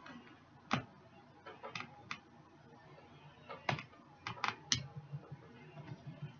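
Eating sounds: scattered light clicks and taps, about a dozen spread unevenly with quiet between, from utensils and chewing while tasting a piece of roast.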